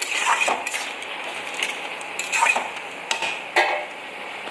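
A metal spatula scraping and clinking against a metal kadai in irregular strokes while stir-frying wilted leafy greens, with a light steady sizzle underneath.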